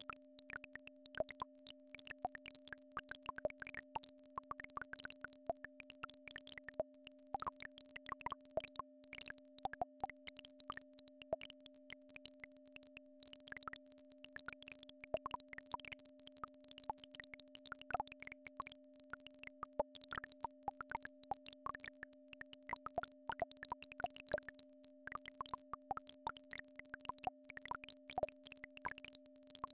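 Two steady synthesized frequency tones, one low and one higher, held without change, as played for brainwave-entrainment or Rife-style healing. Many irregular sharp clicks and pops, louder than the tones, are scattered over them.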